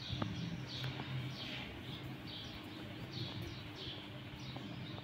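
A small bird chirping over and over, short high chirps falling in pitch about twice a second, over a low steady hum.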